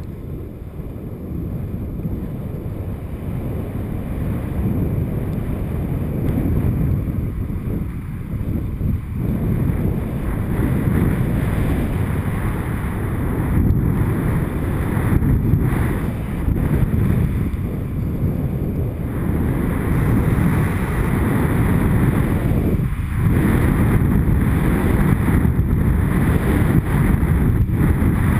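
Wind rumbling over a GoPro's microphone while skiing downhill at speed, mixed with the skis running on groomed snow; it grows slowly louder.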